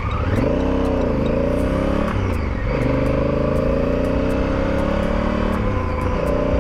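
2017 Honda Africa Twin CRF1000L's parallel-twin engine accelerating away from a stop, pitch climbing through the gears with three upshifts: about a second in, about two and a half seconds in, and near the end.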